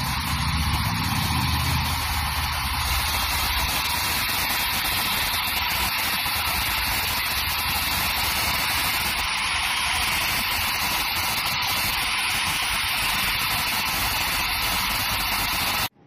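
Hand-held hair dryer running, a steady loud blowing hiss, with a low rumble in the first few seconds; it stops abruptly near the end.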